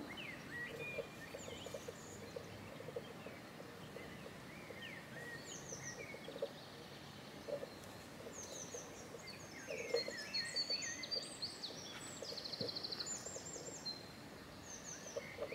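Small birds chirping in many short, quick calls, busiest in the second half, with one fast buzzy trill about two-thirds of the way through, over a faint steady hiss.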